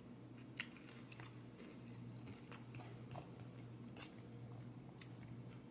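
Faint chewing of a mouthful of salad, with a handful of soft, scattered crunches and mouth clicks over a low steady hum.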